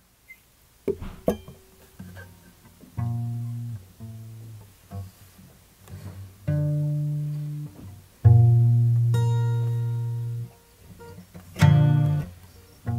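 Instrumental guitar intro: plucked notes and low notes that ring out and fade, with four longer, louder low notes spaced a few seconds apart.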